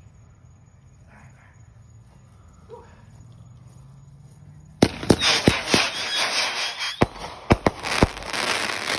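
Consumer aerial firework going off: a sudden loud bang about five seconds in, then a rapid string of sharp reports over dense crackling that stops at the end.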